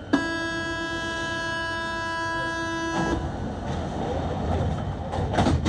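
Paris Métro line 14 door-closing warning buzzer at a station: one steady, harsh buzz that starts suddenly and lasts about three seconds before cutting off. It is followed by rumbling station noise and a loud clunk near the end.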